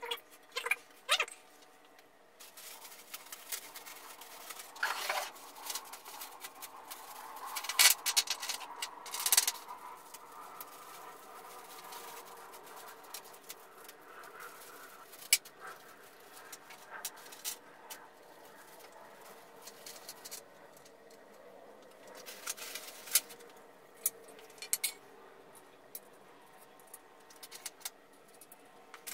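Irregular clicks, knocks and light rattles of metal parts being handled around a bandsaw lying on the floor, with a couple of louder knocks about eight and nine seconds in.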